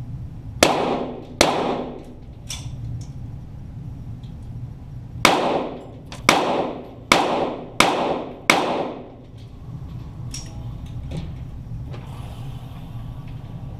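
.22 rimfire Walther GSP target pistols firing, heard from the target end: two shots, a pause, then five shots about a second apart, each ringing out in a long echo, with a few fainter pops in between.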